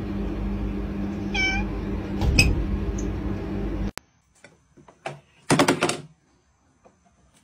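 Domestic cat meowing: a short meow about one and a half seconds in, with a sharp knock just after it. A louder, longer meow comes a little past halfway.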